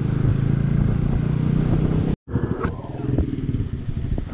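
Motorcycle engine running under way, with a fast steady pulsing and road and wind noise. It cuts off suddenly about two seconds in, and quieter, uneven engine and traffic noise follows.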